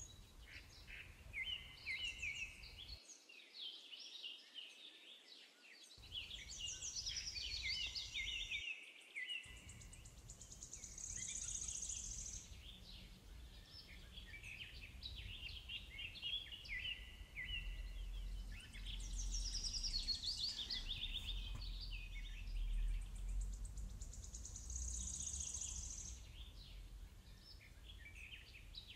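Several birds singing, a busy mix of repeated chirps and quick trills, over a faint background hiss.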